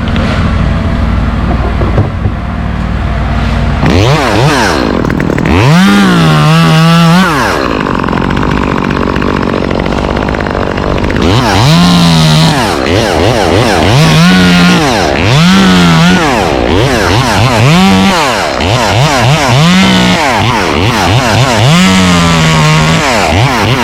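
Gasoline chainsaw idling for a few seconds, then revved up and let back down about seven times in bursts as it cuts into mango tree wood.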